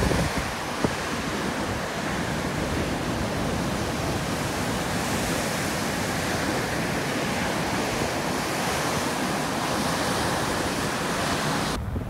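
Large storm waves on Lake Superior breaking on a pebble beach and against an ice-covered rock: a steady, dense rush of surf, with wind on the microphone.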